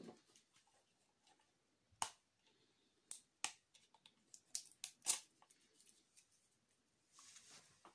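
Hard plastic clicking and knocking as a cordless drill battery pack and charger are handled: one sharp click about two seconds in, a quick run of clicks between about three and five seconds, and a short rustle near the end.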